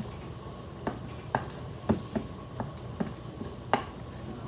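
A mixing utensil knocking and scraping against a metal mixing bowl while stirring a thick ricotta and spinach filling. There are about seven sharp knocks at uneven spacing, the loudest near the end.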